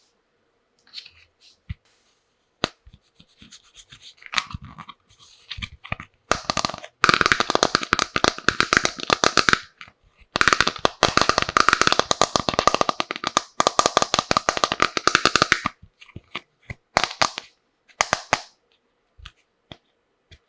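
Hands handling small plastic toy tea-set pieces and their packaging: scattered clicks and scratches, then two long runs of fast, dense rattling clicks in the middle.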